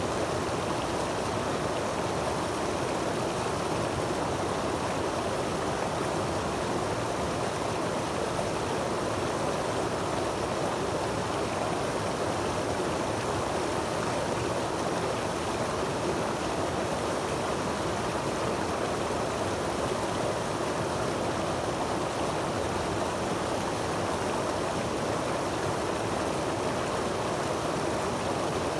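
Creek water cascading over granite rocks in a small falls: a steady, unbroken rushing and splashing.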